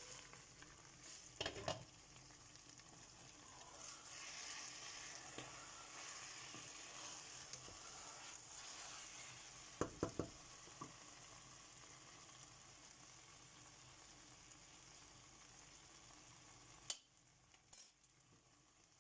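Okra and meat curry sizzling faintly in a stainless steel pot, a steady hiss, with a few sharp knocks against the pot, three in quick succession about halfway through. The sizzle drops away near the end.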